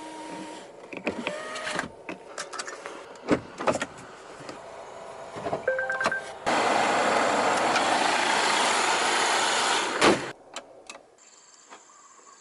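Scattered clicks and a few short tones, then a Volvo XC60 power window motor runs evenly for about four seconds and stops with a sharp thunk.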